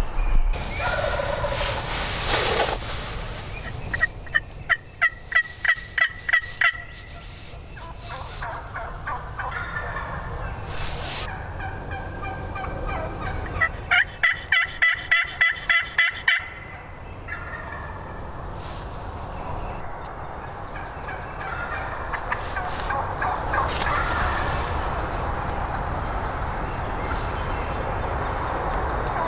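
Two runs of turkey yelping, each a quick string of eight or nine yelps lasting about three seconds, about ten seconds apart.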